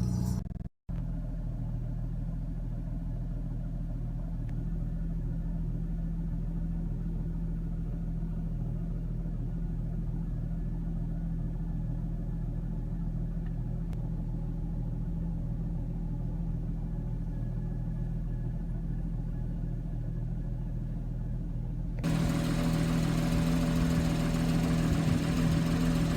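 2014 Porsche Boxster S's naturally aspirated 3.4-litre flat-six engine and exhaust running steadily at idle. The sound drops out briefly just under a second in. About 22 seconds in it turns abruptly louder and brighter.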